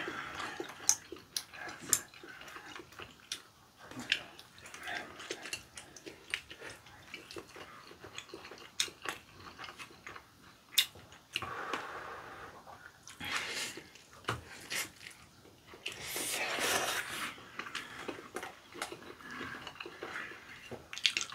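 Eating rabokki with chopsticks: chewing and scattered clicks of chopsticks, with a few longer noisy slurps of ramen noodles in the second half.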